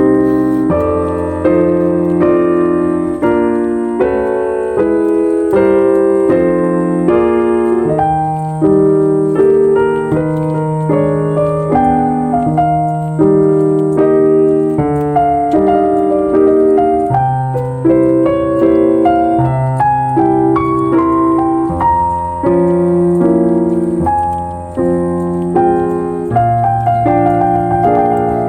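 Background piano music: a slow, calm instrumental piece with held chords and a bass line.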